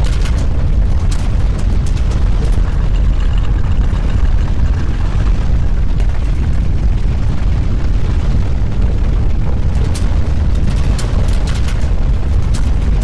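Deep, steady earthquake rumble, with scattered rattles and knocks over it that grow more frequent near the end.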